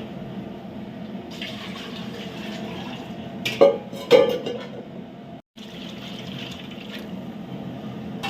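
Liquid pouring steadily into a large cooking pot, coconut milk going into the rice pot. Two sharp knocks of a vessel about three and a half and four seconds in.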